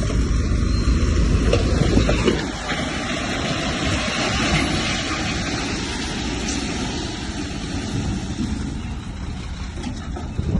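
A heavy diesel earthmoving machine running steadily, with a strong low rumble for the first two seconds or so.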